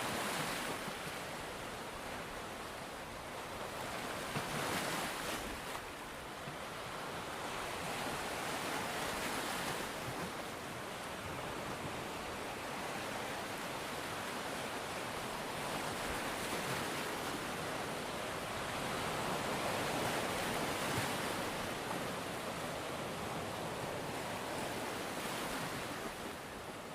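Ocean waves washing onto a shore, a steady rush of surf that swells every four to five seconds as each wave breaks.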